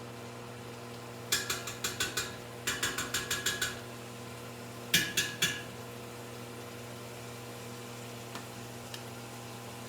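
Three short bursts of rapid, evenly spaced clicking, about eight clicks a second, over a steady low hum.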